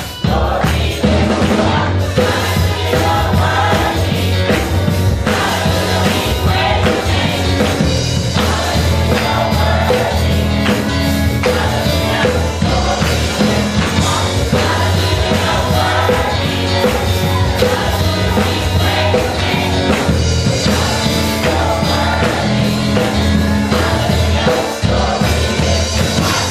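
Church choir singing a gospel song with instrumental accompaniment: a strong bass and a steady beat under the voices.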